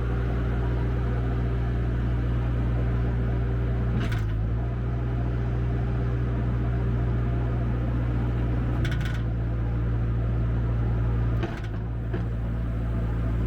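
The 73 HP diesel engine of a Bobcat 863 skid steer loader running steadily. Three short clatters come about four, nine and eleven and a half seconds in, and the engine note dips briefly after the last.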